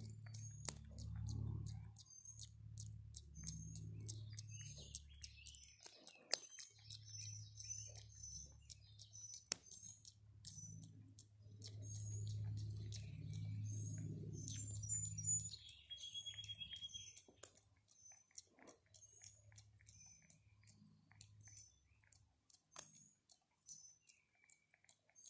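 Java macaque making quick mouth clicks and lip-smacks while grooming, a rapid run of small sharp clicks, with short high chirps scattered through. A low muffled rumble comes and goes under them and is loudest near the middle.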